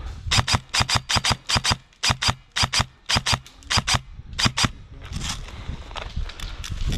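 An airsoft gun firing a rapid string of about twenty sharp cracking shots in uneven groups, roughly five a second, stopping about two-thirds of the way through. Softer rustling follows.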